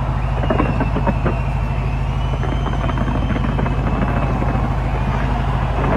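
Fireworks display: a constant low rumble of bursts with many sharp cracks and pops, and a thin high whistle drawn out above them.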